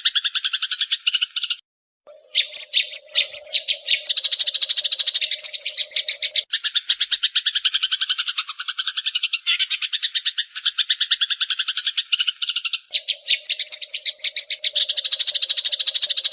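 Songbird recording of continuous fast, rattling trills, about ten notes a second, with a brief break near the start. A low steady hum sits under the trills for part of it.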